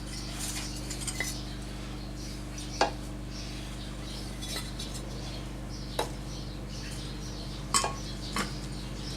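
Heavy scrap pieces being handled and set down as weights: a few separate sharp clinks and knocks, the loudest about three seconds in and near the end, over a steady low hum.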